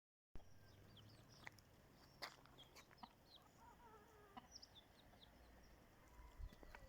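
Faint clucking of chickens, with scattered short high chirps and a few light clicks.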